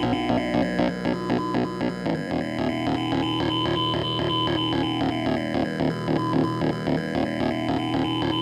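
Homemade three-oscillator noise box played through an Ibanez phaser pedal and amplifier: layered steady electronic tones pulsing rapidly, with the phaser's slow sweep rising and falling every few seconds. The low bass drone drops away about two seconds in.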